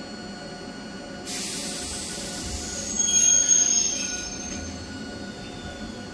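Hakone Tozan Railway train at the station: a sudden steady hiss starts about a second in, then high-pitched metal wheel squeal rings out briefly, loudest about three seconds in, before fading.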